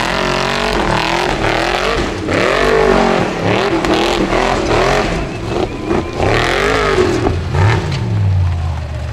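Formula Offroad buggy's engine revving hard on a steep dirt hill climb, the pitch repeatedly swinging up and down with the throttle, over the noise of tyres churning loose dirt.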